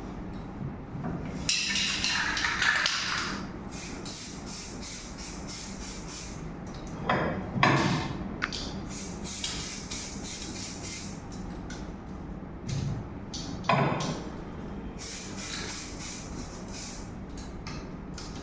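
Aerosol can of magnetic-particle ink sprayed in several short hissing bursts, the longest one near the start, over a low steady hum.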